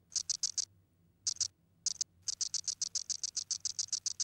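A cicada's ribbed tymbal membrane clicking: a few short bursts of rapid, dry, high-pitched clicks, then from a little past halfway a steady run of about eight clicks a second.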